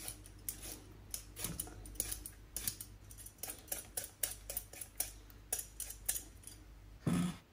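Metal vegetable peeler scraping the skin off a raw turnip in short, irregular strokes, about two or three a second, with peelings dropping into a metal bowl. A brief, louder knock comes just before the end.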